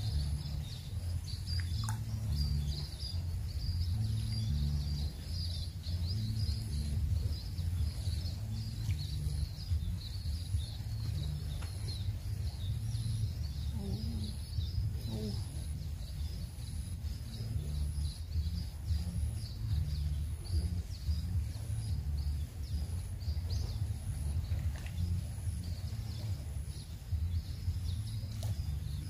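Outdoor ambience: a steady, uneven low rumble of wind on the microphone, with continuous high chirping in the background.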